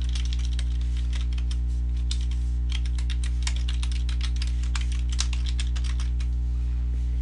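Computer keyboard typing: quick, irregular keystrokes as an email address and then a password are entered. A steady low electrical hum runs underneath.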